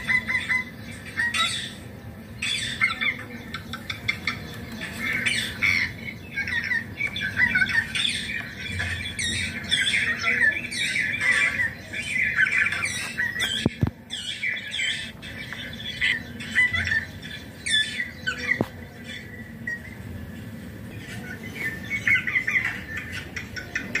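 Rose-ringed parakeet squawking and chattering: many short, quick calls one after another, easing off for a few seconds near the end before starting again. A single sharp click about 14 seconds in.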